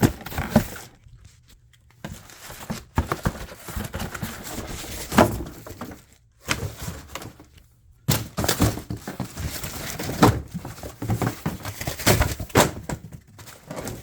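Irregular knocks, thumps and rustling as a monitor stand is pulled out of its box and packaging, with two short pauses in the handling.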